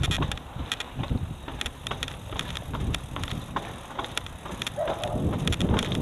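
Mountain bike rolling downhill over a rough concrete path: tyre rumble with frequent irregular rattles and clicks from the bike, and wind on the microphone.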